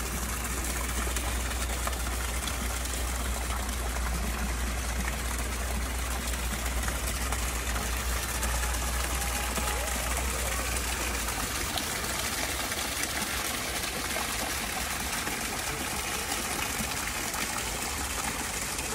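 Steady rush of running water, with a low hum underneath that stops about eleven seconds in.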